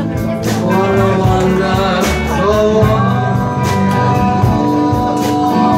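Live band playing: a man singing into a microphone over electric guitars and a drum kit, with a loud drum and cymbal hit about every one and a half seconds.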